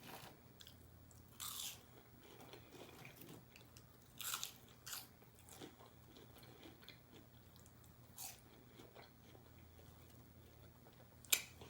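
Close-miked eating of crispy fried chicken strips and fries: quiet chewing with about five sharper crunches a few seconds apart.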